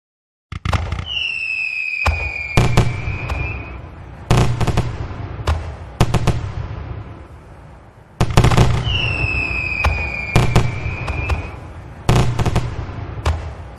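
Fireworks going off: a string of sharp bangs, each with a rumbling, echoing tail, and twice a whistle that falls slightly in pitch for about three seconds.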